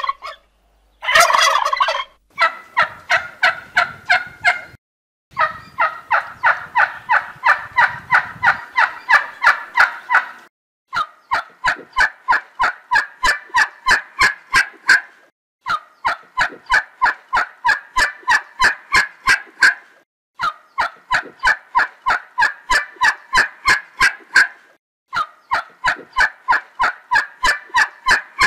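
Turkey tom calling: a loud burst about a second in, then long runs of rapid, evenly spaced notes, about five a second, each run lasting four to five seconds with short breaks between.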